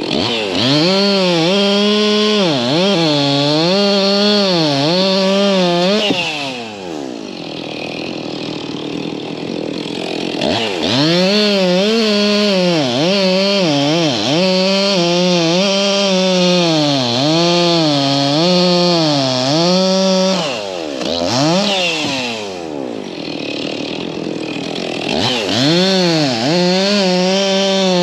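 Two-stroke chainsaw cutting wood at high revs, its pitch sagging and recovering about once a second as the chain bites under load. Twice it drops back toward idle, then revs up again.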